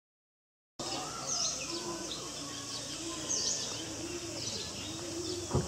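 Birds calling: a sharp, high chirp repeats about once a second over a lower, rounded call that also repeats, against a steady high hiss. The audio starts a moment in, and there is a short knock right at the end.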